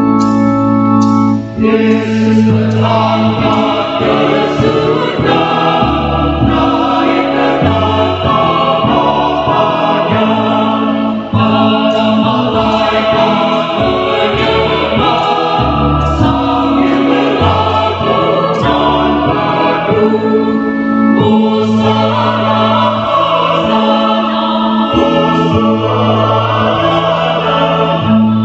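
A church choir sings a hymn in parts with organ accompaniment. The organ holds low notes underneath, and the voices come in fully about two seconds in after a short organ passage.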